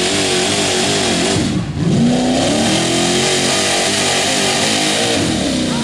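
Street-legal pickup truck's engine running hard at high revs under load while pulling a weight-transfer sled. The engine note dips briefly about a second and a half in, then climbs again.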